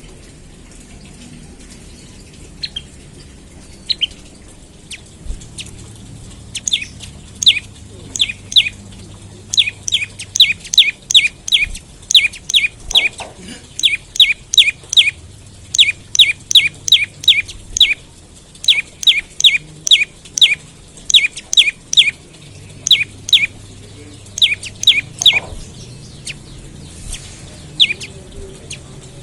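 Prenjak lumut singing: a fast series of sharp, downslurred chirps, about three or four a second, in runs of a few seconds with short breaks. The first notes are scattered singly, and the steady runs begin a few seconds in.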